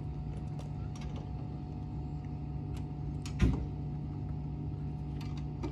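Wheel brace turning a ute's wheel nuts, with small metal clicks and one sharp clank about three and a half seconds in, over a steady low hum.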